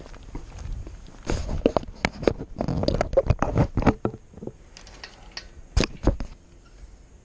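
Rummaging through tools while searching for a thin shim: a busy stretch of clattering and rustling, then two sharp clicks near the end.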